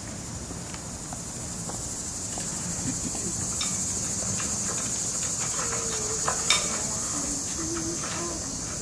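Steady high-pitched drone of insects, with faint scattered clicks and a sharper click about six and a half seconds in.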